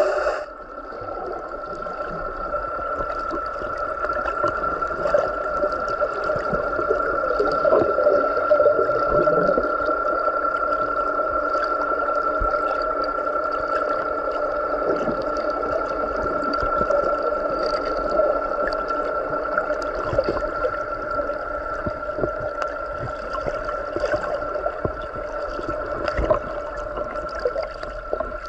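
Underwater sound picked up by a submerged camera: a steady two-tone hum over a wash of water noise, with scattered faint clicks and knocks.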